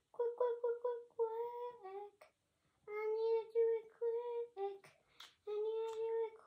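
A young girl singing a wordless tune to herself, some short repeated notes and some longer held ones, in phrases broken by short pauses.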